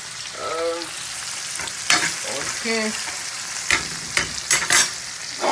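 Mixed vegetables sizzling in a frying pan with a steady hiss, while a utensil stirs them and scrapes and clinks against the pan several times from about two seconds in.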